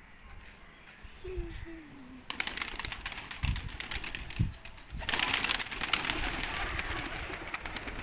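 Domestic fancy pigeons: a short falling coo about a second in. Then, from about two seconds in, a loud rushing, clattering noise full of rapid clicks, which grows louder about five seconds in.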